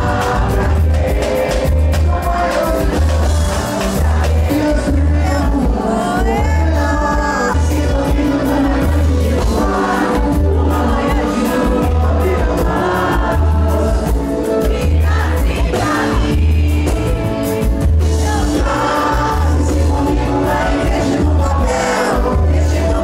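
A live pagode band playing loudly: a lead singer over cavaquinho, acoustic guitar and hand percussion, with a steady bass beat. The crowd sings along.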